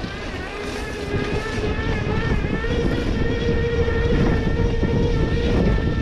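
KuKirin V1 PRO electric bike's rear hub motor whining under throttle. Its pitch rises a little and then holds before fading near the end, over a steady low rumble of wind on the microphone.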